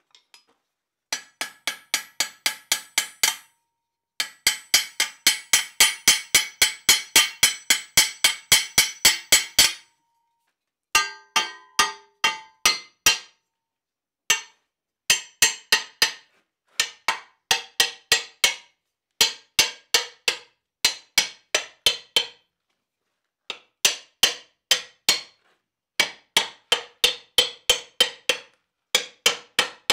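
Hand hammer striking the riveted iron band of a swage block stand, about four blows a second in runs with short breaks. First comes a long run with the band over the anvil horn, setting the rivets. Then shorter, ringing runs drive the band down over the wooden posts of the stand.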